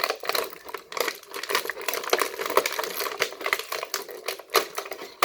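Stiff plastic toy packaging crinkling and clicking as it is handled and pried apart to get the figure out: a dense, irregular run of small sharp crackles and clicks.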